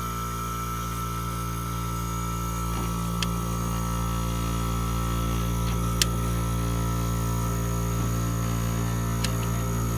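Vintage 8,000 BTU window air conditioner running just after start-up, its compressor and fan giving a steady hum, with a few sharp ticks about three, six and nine seconds in.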